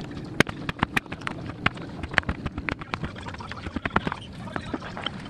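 Kitchen knife chopping a dark chocolate bar on a plastic cutting board: repeated sharp, irregular knocks of the blade snapping through the chocolate and striking the board.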